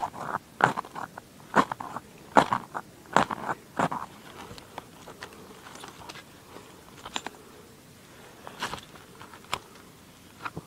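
Hacksaw-blade striker scraped hard down the ferro rod of a magnesium fire starter to throw sparks onto magnesium shavings. There are about six quick rasping strokes, roughly one a second, then softer scraping and three more single strokes near the end.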